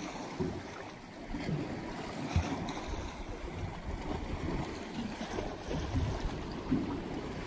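Wind buffeting the microphone in uneven gusts, over water lapping and splashing against a small boat's hull.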